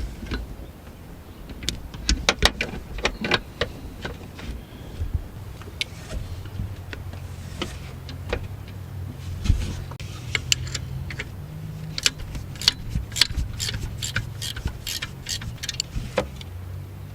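Hand tools clicking and clinking on metal: a 13 mm deep socket and wrench working a nut on an alternator mounting. There is a quicker run of clicks late on, over a low steady hum.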